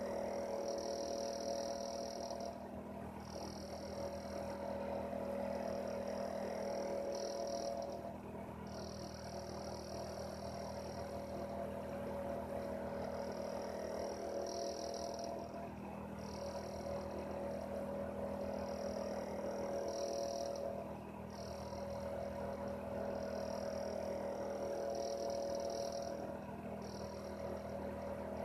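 Heater running steadily: a low hum under a high, pulsing whir that drops out briefly about every five to six seconds.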